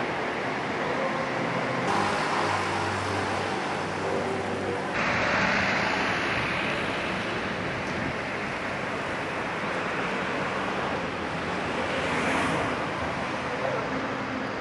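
City street traffic: car engines and tyre noise going past on the road, with a steady engine hum in the first few seconds. The sound changes abruptly about five seconds in, and swells near the end as a vehicle passes.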